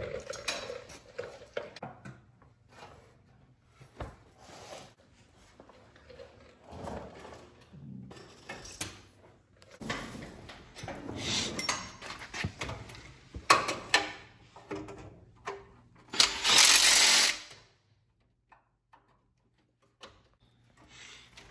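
Hand tools and metal parts clicking, clinking and knocking as a mechanic works under a truck on a creeper. Near the end comes one loud hiss-like rush of noise, lasting about a second and a half.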